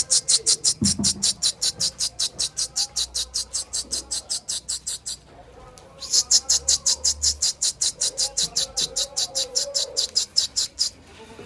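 Rapid high-pitched chirping, about eight chirps a second, in two long runs with a brief pause about five seconds in.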